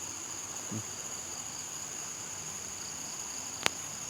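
Steady high-pitched chorus of crickets trilling, with one sharp click about three and a half seconds in and a brief low sound just under a second in.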